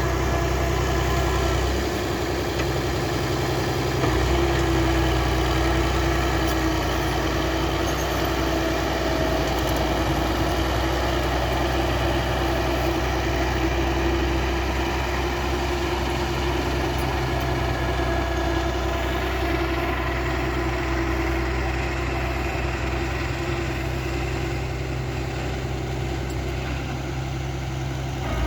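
Bulldozer's diesel engine running steadily, its low hum thinning briefly about two seconds in before returning.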